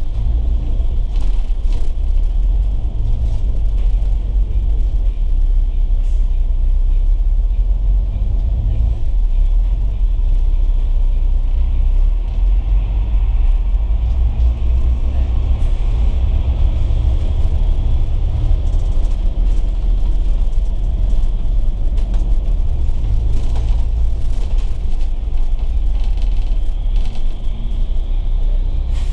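Steady low rumble of a moving Volvo B9TL double-decker bus, heard from inside: diesel engine and road drone with a fainter hiss above it.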